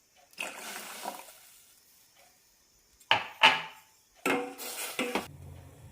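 Water poured into a pan of milk, then a few clinks and knocks of metal cookware against the pan.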